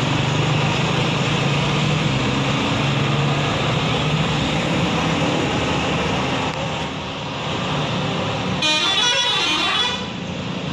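Bus engine running amid road noise, then near the end a bus's multi-tone 'telolet' air horn plays a quick tune for about a second and a half.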